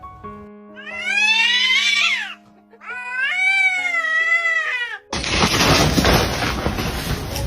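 A cat gives two long, drawn-out meows, the first rising in pitch, over background music with held notes. About five seconds in, the sound cuts to a loud, even noise.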